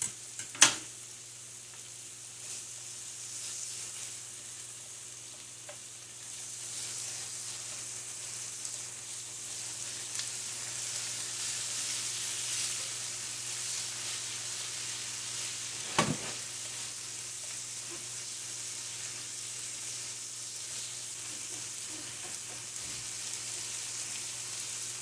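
Marinated pork shoulder slices with onion, carrot and garlic sizzling steadily in a frying pan, stirred with chopsticks. Two sharp clicks, one just after the start and one about sixteen seconds in.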